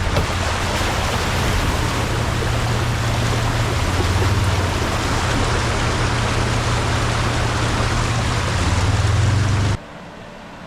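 Steady rushing of flowing water, a broad even hiss over a deep low rumble, that cuts off abruptly near the end.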